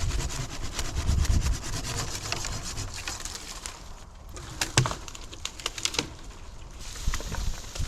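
Wood scraping and crackling as it is handled, with a couple of sharp cracks about five and six seconds in.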